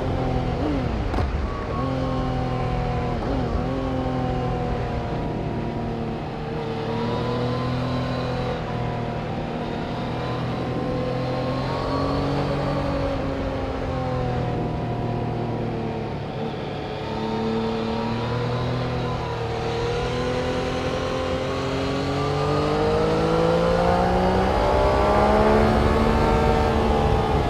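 Engines of vehicles lapping a race circuit. Their pitch repeatedly climbs and drops back in steps as they accelerate and change gear, and the sound grows louder near the end as a vehicle comes closer.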